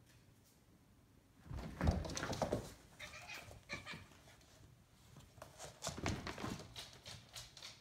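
Two house cats, a tabby and a calico, fighting: a heavy thump and scuffle about a second and a half in, a short cat cry around three seconds, then paws scrabbling and thudding on a wooden floor as they chase each other.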